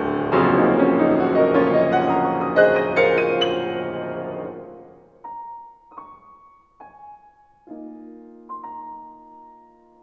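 Solo acoustic piano: a dense, loud passage of full chords dies away over the first half, then a few single notes and a low chord follow about a second apart, each left ringing long under the sustain pedal.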